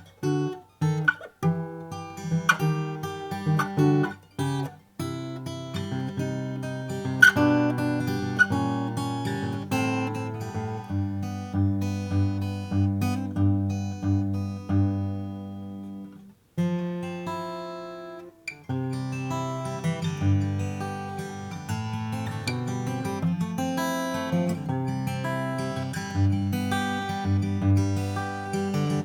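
Martin Custom Shop Style 18 acoustic guitar with flamed mahogany top, back and sides, played as a mix of picked notes and strummed chords. The playing pauses briefly about halfway through, then picks up again.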